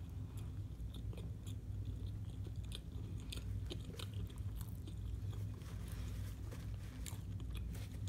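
Close-miked chewing of a shrimp po' boy sandwich with air-fried, cracker-crumb-coated shrimp on French bread: a steady run of small wet mouth clicks and light crunches.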